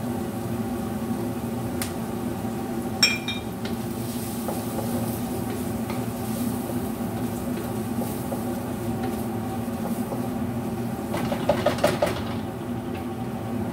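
Wooden spatula stirring and scraping food in a steel wok, with a sharp knock about three seconds in and a quick run of clacks near the end, over a steady low hum.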